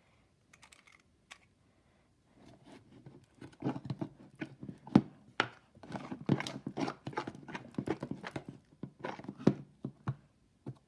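Irregular run of small clicks, taps and soft smacks from hands working with sticky slime and a food colouring bottle, starting about two seconds in.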